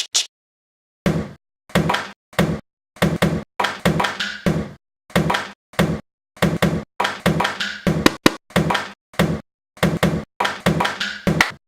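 Knocks and taps on assorted household objects, a short hit with a brief ring about twice a second, some in quick pairs, each cut off into dead silence.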